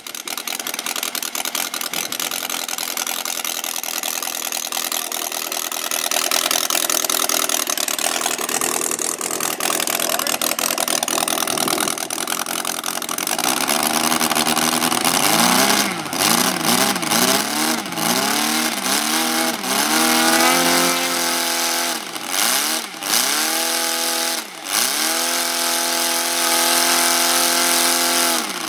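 Model inline four-cylinder aero engine turning a propeller on a test stand. It runs steadily at first, then from about halfway is revved up and down several times with a few quick throttle drops, and near the end it holds at a steady high speed.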